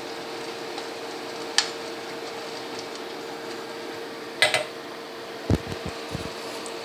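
Pot of noodles simmering on an electric cooktop with a steady fan-like hum and one constant tone. A ladle clinks against the aluminium pot about one and a half seconds in and again around four and a half seconds in, followed by a few dull low thumps.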